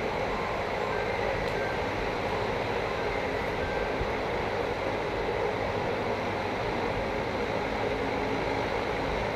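A steady, even rushing noise with a low rumble underneath. It runs without breaks or distinct knocks.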